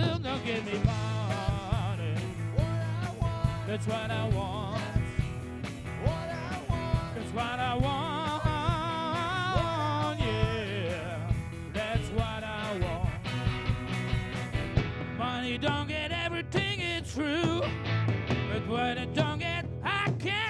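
A live rock band playing a song: electric guitars, bass, drums and keyboard under a sung lead vocal.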